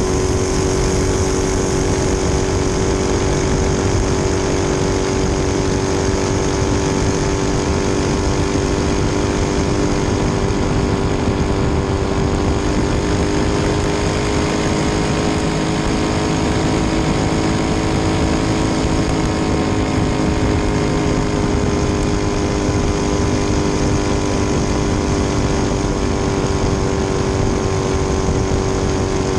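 Race boat's 1600-plus horsepower twin-turbo V8 running hard and steady at speed, heard from right beside the open engine. Its pitch lifts slightly about halfway through and settles back.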